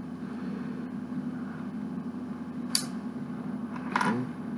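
Two sharp clicks of small plastic Lego pieces being handled, one a little under three seconds in and one about a second later, over a steady low background hum.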